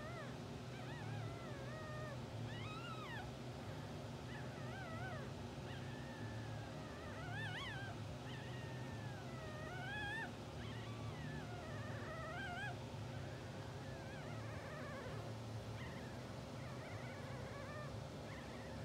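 Newborn English bulldog puppies squeaking and whimpering in their sleep: a string of short, wavering high squeaks, over a steady low hum.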